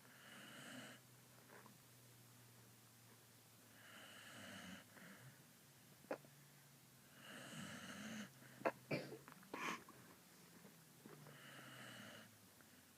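Sleeping puppy snoring faintly: four slow, drawn-out snoring breaths, one every three to four seconds. Between the third and fourth, a quick cluster of short sharp clicks and snuffles is the loudest part.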